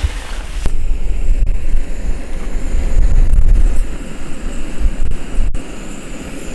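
Gusty wind buffeting the microphone as a shifting low rumble that swells under a second in, is loudest around the middle, then eases.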